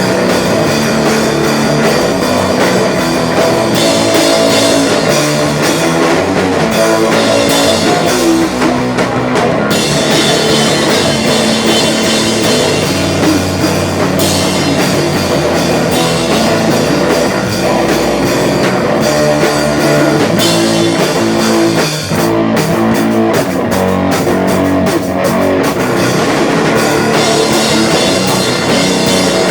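Rock band playing live, with electric guitar and a drum kit at full volume. The sound drops out briefly about 22 seconds in, then comes back as a stretch of stop-start hits before the full band carries on.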